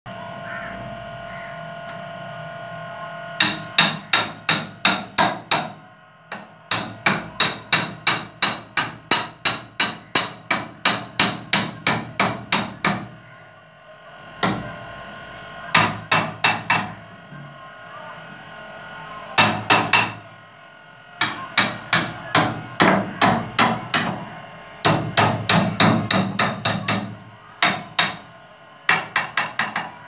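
Hammer blows at the ceiling while a ceiling fan mount is being fixed. The sharp strikes come in runs of about three a second, with short pauses between runs, starting about three seconds in.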